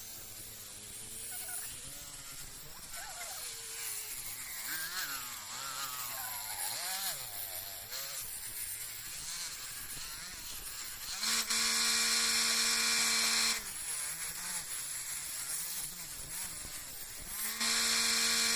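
An electric power tool's motor whining at a steady fixed pitch in two runs: one of about two and a half seconds about two-thirds of the way in, and another starting shortly before the end. Before that there are faint background voices.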